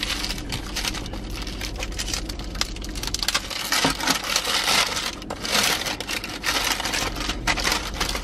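Paper wrapping crinkling and rustling as a sandwich wrapped in white paper is unfolded by hand, in quick irregular crackles.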